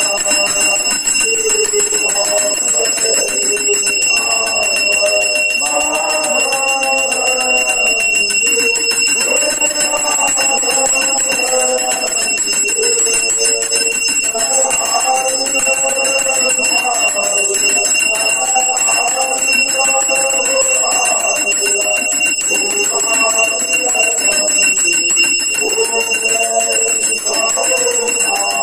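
Men singing an aarti hymn, the lead voice through a microphone, with long held notes. Under it a brass hand bell is rung continuously, giving a steady high ring.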